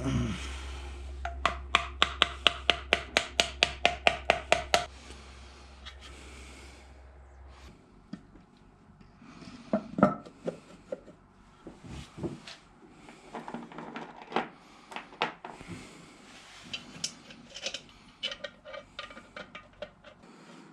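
Hand tools working on pool pump parts during a seal replacement: a run of sharp, even clicks at about five a second for some three seconds, then scattered knocks and scraping.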